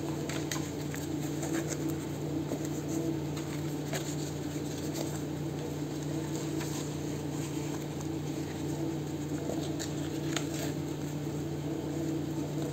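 Paper and lace being handled, with scattered light rustles and small taps over a steady low hum.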